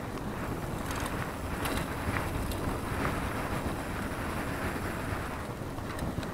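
Wind buffeting a mountain bike's on-board action camera microphone, over the rumble of knobby tyres rolling fast down a dry dirt trail, with a few short clicks and rattles from the bike over bumps.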